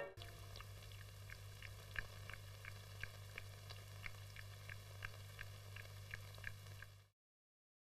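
Faint steady low hum with soft ticks about three a second, cutting off to silence about seven seconds in.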